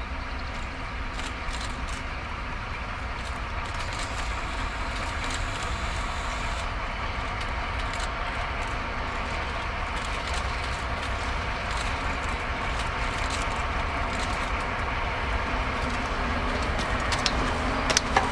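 DR class 118 diesel-hydraulic locomotive hauling a freight train, its engine running steadily and growing slowly louder as it approaches. A couple of short, sharp sounds stand out near the end.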